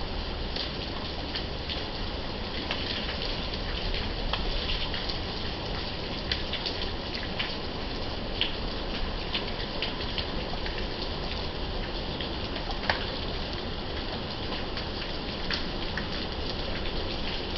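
Steady rain falling, with many separate drops ticking sharply on a hard surface close by. One drop is louder than the rest about thirteen seconds in.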